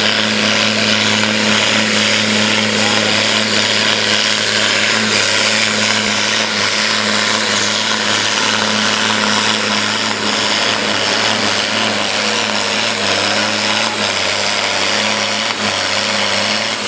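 John Deere pulling tractor's diesel engine at full throttle under the load of the pulling sled, running at a steady high pitch with a high whine over it.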